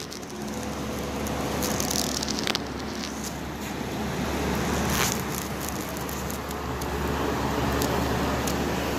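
Steady low mechanical hum with scattered crackles, and brief hisses about two seconds in and again near five seconds.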